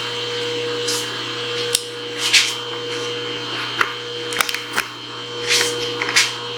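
Steady electrical hum from a powered-up CNC knee mill retrofit, with a few sharp clicks and short hisses scattered through it.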